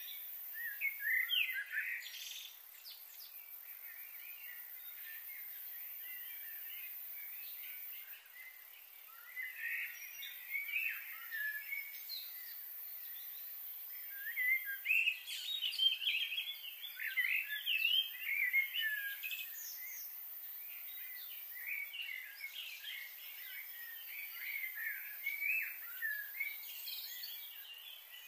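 Small birds chirping and twittering in short, scattered bursts, busiest in the second half, over a steady faint high hiss.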